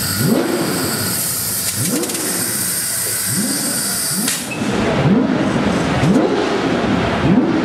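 Racing car engine revving in repeated short throttle blips, the pitch rising and falling with each one, about one a second and coming closer together in the second half. A steady high hiss cuts off abruptly about four seconds in.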